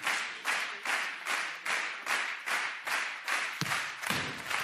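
Studio audience clapping in unison, about three claps a second, with a dull thump about three and a half seconds in.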